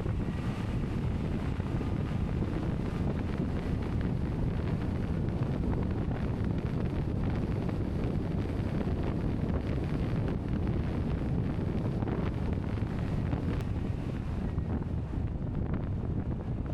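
Steady wind noise buffeting the microphone over a constant low rumble.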